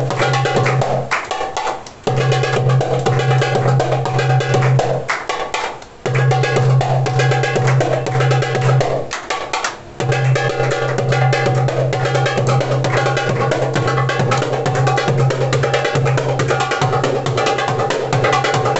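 Darbuka (derbak) played in rapid strokes over backing music with a held low bass note; the music breaks off briefly three times, about a second in, around five seconds and around nine seconds in.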